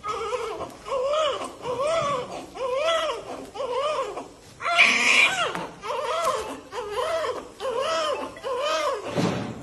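Infant crying in a steady run of short wails, each rising and falling in pitch, with one louder, shriller cry about halfway.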